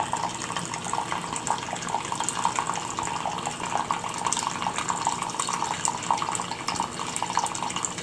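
Water running steadily into a stream table, splashing and trickling down a channel over wet sand and gravel.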